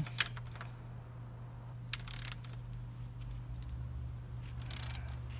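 Ratchet torque wrench and socket working a bolt: a few short metallic clicks and rasps, about 2 s in and again near the end, over a steady low hum.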